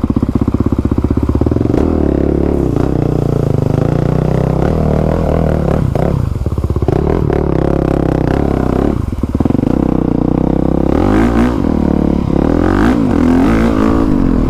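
Honda CRF450R's single-cylinder four-stroke engine running as the dirt bike is ridden, its pitch rising and falling with the throttle, with brief drops off throttle about six and nine seconds in.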